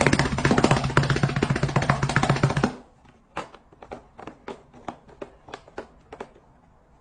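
Music with fast, dense drumming over a steady low tone, stopping suddenly under three seconds in, followed by about a dozen separate sharp taps.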